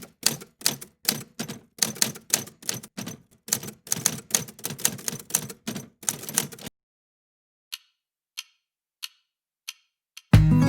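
A rapid run of sharp clacking keystrokes, about four a second, lasting about six and a half seconds, then five single clicks spaced well apart. Strummed guitar music starts near the end.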